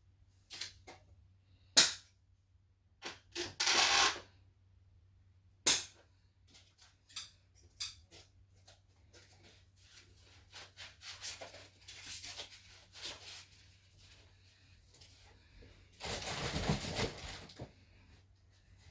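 Unpacking by hand: sharp clicks and knocks of parts and packaging being handled and set down, with plastic packaging rustling, the longest rustle near the end.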